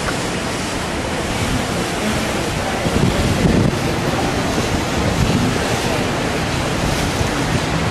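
Wind buffeting the camcorder microphone: a steady rushing noise with stronger low gusts about three seconds in and again around five seconds.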